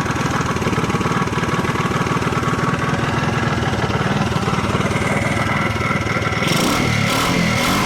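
A Wolf Striker 125 cc mini bike engine, running with its newly fitted larger carburetor and corrected CDI wiring, after a no-start fault. It runs steadily, then about six and a half seconds in its pitch begins to rise and fall.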